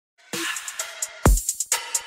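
Background electronic music with a drum-machine beat: a deep kick drum and quick hi-hat ticks.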